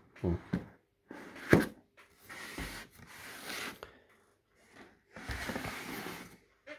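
Cardboard boxes being handled on a wooden table. There is one sharp knock about one and a half seconds in, then two stretches of scraping and rustling as cardboard slides against cardboard.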